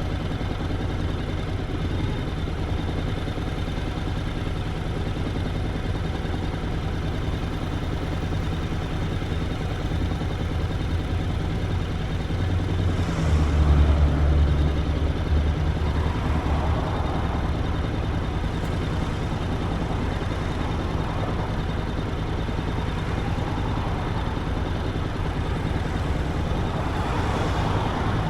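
Motorcycle engine running steadily while being ridden, with a louder low rumble for a few seconds about halfway through.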